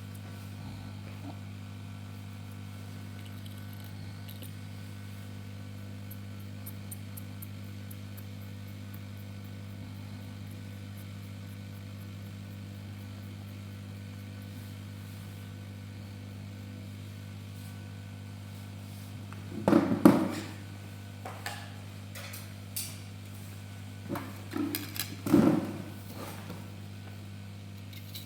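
Steady low hum of running bench equipment, with a few sharp knocks and handling clatter about two-thirds of the way in and again near the end, as parts are handled during the work.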